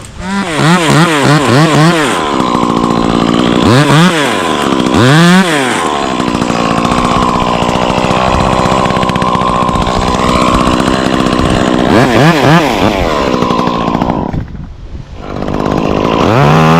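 Chainsaw engine blipped several times quickly, revved twice more, then held at steady high speed for about eight seconds as in a long cut. Near the end it drops off briefly and then revs up again.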